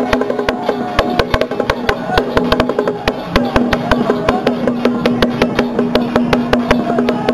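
Traditional Taiwanese temple procession music: a wavering wind melody over a held note, with rapid, irregular percussion strikes throughout.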